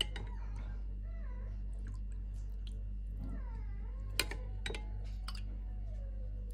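A cat meowing several times in short, bending calls. A ladle clinks sharply against a glass bowl about four seconds in. A steady low electrical hum runs underneath.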